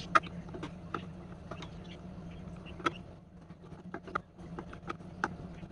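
Flat-blade screwdriver turning a slotted screw in a wooden handle: irregular small clicks and scrapes of the blade in the slot, the loudest just after the start. A steady low hum runs underneath.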